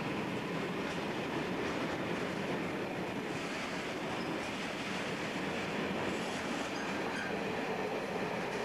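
Covered hopper wagons of a freight train rolling past close by: a steady rumble and clatter of steel wheels on the rails, with a few faint, short high squeaks from the wheels in the middle.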